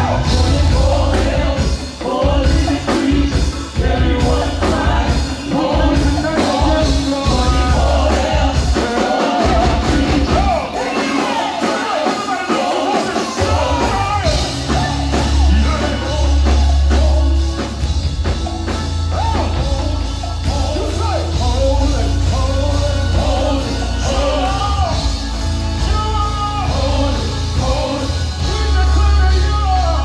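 Live gospel praise music played loud through a PA: several singers over a band with heavy bass. The bass drops out for a few seconds about ten seconds in, then comes back.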